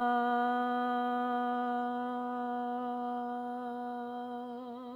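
A woman's voice holding one long, steady sung tone in vocal toning, wavering slightly just before it ends.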